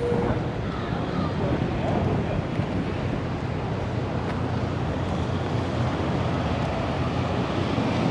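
Steady wind rushing over a head-mounted action camera's microphone outdoors, an even rumbling hiss with no distinct events.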